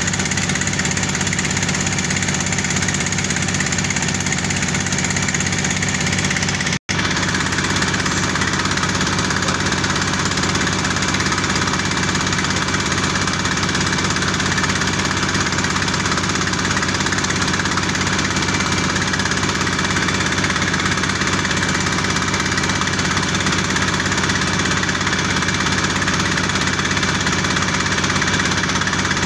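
Single-cylinder horizontal diesel engine running steadily, driving a pump that circulates drilling mud for well drilling. The sound cuts out for an instant about seven seconds in.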